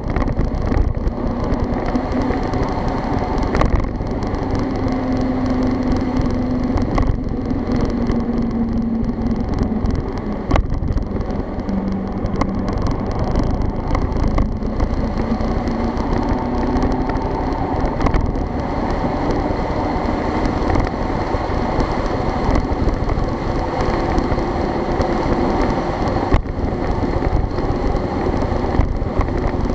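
A motor vehicle's engine running while driving along a road, its note rising and falling with speed, over a steady rumble of road and wind noise.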